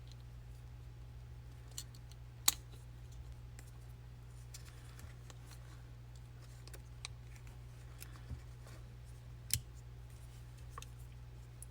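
Scattered small clicks and taps from handling a GoPro Max camera and its parts, the sharpest about two and a half seconds in and again late on, over a steady low hum.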